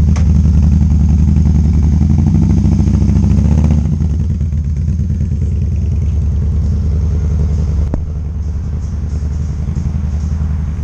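Harley-Davidson Fat Boy's V-twin engine running, dropping to a lower level about four seconds in.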